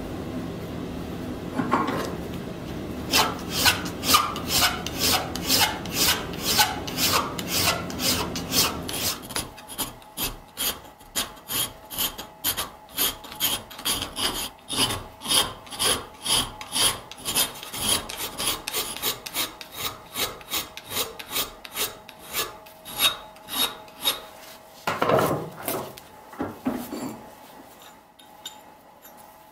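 Hand file drawn over a 52100 steel knife blank held in a bench vise, rasping in short even strokes about two a second. Near the end come two or three duller scrapes as the blade is shifted in the vise jaws.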